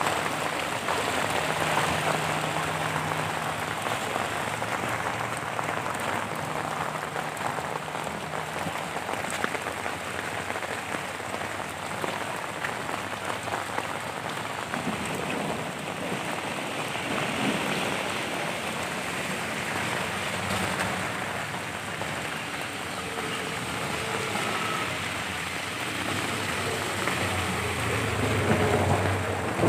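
Steady rain with muddy rainwater runoff flowing along a roadside channel: a constant even hiss that grows a little louder near the end.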